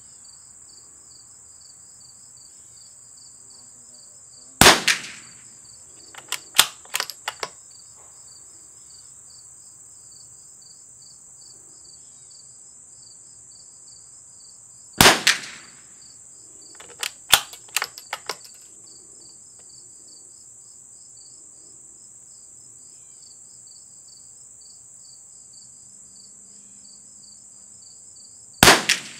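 Three single shots from a CZ455 .22 LR bolt-action rifle fitted with a Harrell barrel tuner, about ten seconds apart, the last near the end. After each of the first two shots there is a quick run of small metallic clicks as the bolt is worked to eject the case and chamber the next round. Crickets chirp steadily underneath.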